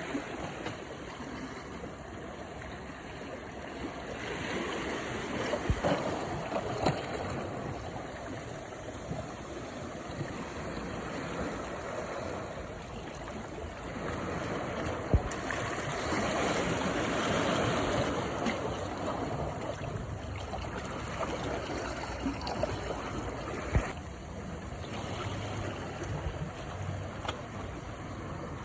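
Sea waves washing onto the shore: steady surf noise that swells and eases, loudest about halfway through, with a few sharp clicks.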